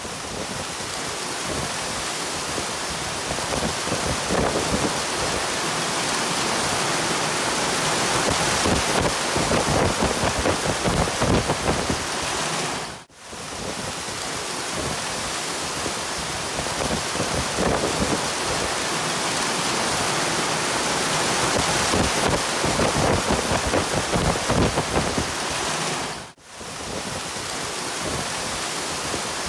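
Hail and heavy rain pelting a car, a dense, steady rush full of small rapid impacts. It drops out briefly twice.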